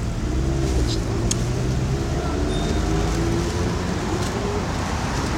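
Road traffic noise: a steady low rumble, with faint voices.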